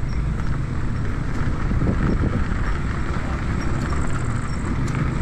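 Steady low rumble of wind on a chest-mounted microphone, mixed with the tyres of a Honda U-Be Cross electric scooter rolling over a gravel path while it rides along.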